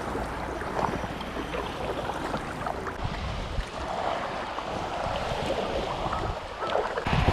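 Sea water splashing and lapping, with small scattered knocks and wind on the microphone.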